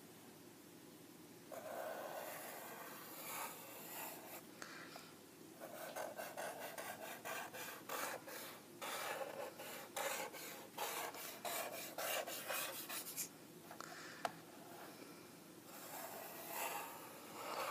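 Felt tip of a Sharpie permanent marker rubbing across paper in many quick short strokes as zigzag lines are drawn, with a pause of about two seconds before the last few strokes.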